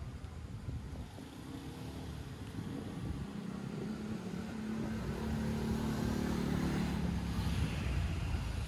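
Street traffic, with a motor scooter's engine growing louder as it approaches and passes close in the second half.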